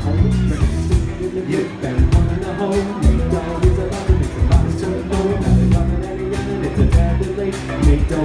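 Amplified live band playing a mid-tempo groove with a heavy bass line and a steady drum beat, with a singer's voice over it.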